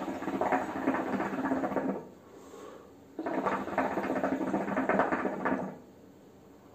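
Hookah water bowl bubbling as smoke is drawn through the hose: two pulls of about two and a half seconds each, with a quiet pause between them and another after.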